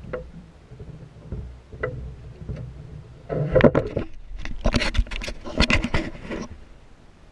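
Handling noise from the camera on the boat deck being grabbed and turned: a cluster of knocks, bumps and rubbing, loudest from about three to six and a half seconds in, after a low rumble with a few faint clicks.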